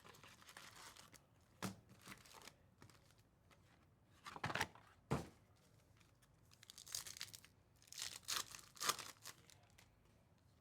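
A trading card pack's wrapper being torn open and crinkled by hand, in several short separate bursts with a sharp click about five seconds in.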